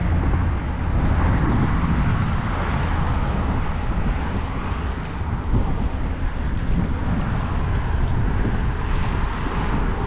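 Steady low rumble and hiss of wind on the microphone, with no distinct events.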